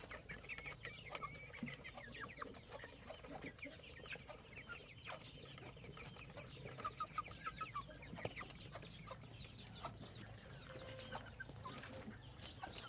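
Chickens clucking, many short calls overlapping one another.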